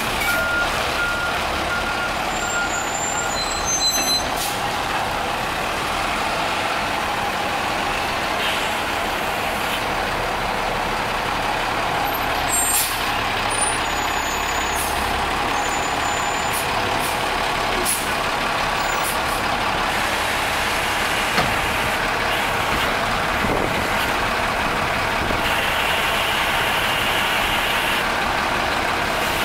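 Diesel engine of a Peterbilt front-loader garbage truck running steadily under load while its hydraulic arms work the forks handling a steel dumpster. A reversing alarm beeps in the first few seconds, with occasional knocks.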